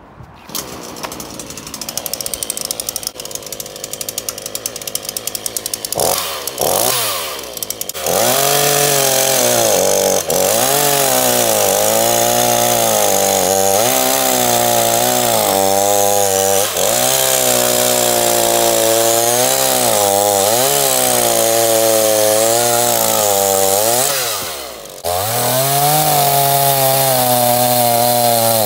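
Two-stroke petrol chainsaw (Titan TTL759CHN) running at an uneven idle for the first few seconds, then revved up and cutting through a thick, damp log with a freshly sharpened chain. The engine note dips repeatedly as the chain bites and recovers, with one brief drop in revs near the end before it picks up again. The saw is a touch short of power in the tighter parts of the cut.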